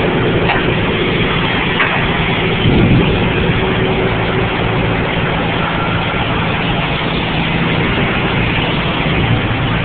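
Heavy tow truck's diesel engine running steadily, with a short louder swell about three seconds in.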